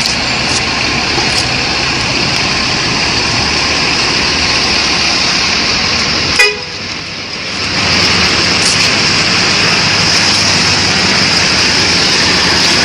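Bus horns tooting over loud, steady road and engine noise. About six and a half seconds in there is a sharp click and a brief drop, then the same dense horn-and-traffic sound carries on.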